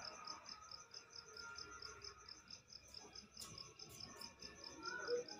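Cricket chirping faintly in an even, rapid pulse of about five chirps a second.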